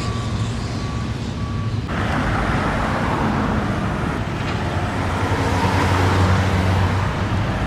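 A reversing alarm beeps about twice a second, then stops about two seconds in. Steady road traffic noise follows, with a heavy vehicle's engine rumbling louder for a few seconds.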